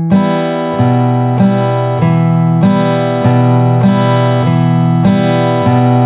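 Yamaha FX310AII steel-string acoustic guitar playing an E minor chord in steady quarter-note downstrokes, about one and a half strokes a second. Single bass notes alternate between the A and D strings, each followed by a strum of the top three strings, giving the campfire or western-style accompaniment.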